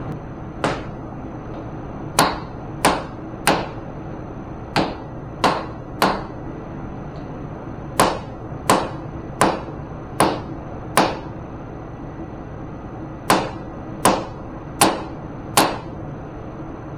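Rubber mallet striking the spindle head of a Cincinnati milling machine: about sixteen sharp blows in short runs of three to five, each run quickly paced. The head is being knocked past a tight rubber seal that binds it.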